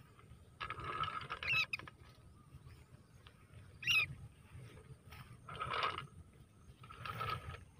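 Footsteps rustling through dry grass and burnt rice stubble, in three short bouts. A few brief high chirps cut through, the loudest about four seconds in.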